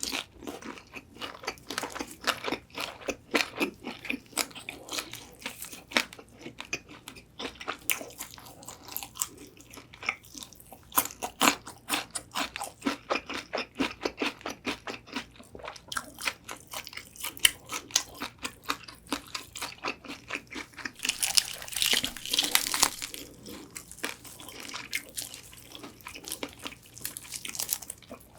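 Close-miked biting and chewing of crispy Korean old-style whole fried chicken (yennal tongdak): the fried skin crackles and crunches in quick, irregular bites, and the chewing runs on between them. About three-quarters of the way through comes a louder, hissier stretch of crunching.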